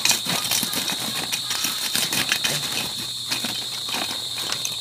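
Lumps of wood charcoal clicking and clattering against each other as they are picked by hand from a pile, busiest in the first three seconds, then thinning out. Crickets chirr steadily behind.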